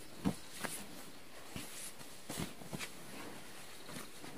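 A sleeping bag being pulled from its stuff sack and laid out on a tent floor: a few short, soft fabric rustles and light bumps about a second apart.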